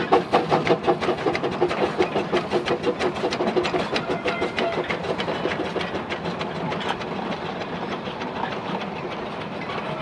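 Two small 2 ft gauge steam tank locomotives working a goods train past, their exhaust beats fast and even at about four a second, fading as the engines move away. The clicking and rattle of the wagons over the rail joints follows as they roll by.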